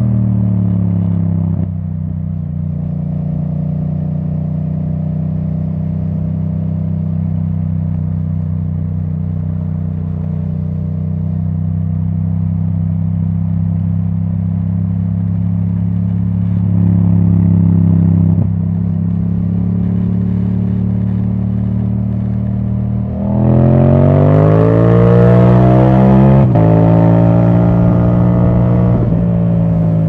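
2017 Yamaha MT-07's parallel-twin engine through a titanium Akrapovic exhaust with the dB killer removed. The note falls as the bike slows, holds steady through a long stretch of cruising, then rises hard under acceleration near the end and drops sharply once, a quickshifted upshift.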